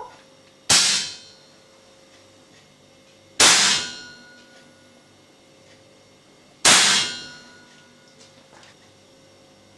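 Webley & Scott FX2000 .177 air rifle fired three times through a Webley silencer, each shot a sharp report with a ringing, metallic tail, about three seconds apart.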